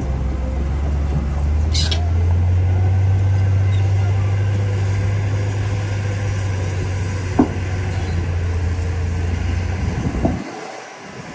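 Heavy earthmoving machine's diesel engine running with a steady low rumble. There is a brief high squeal about two seconds in and two short sharp knocks later. The rumble cuts off suddenly near the end.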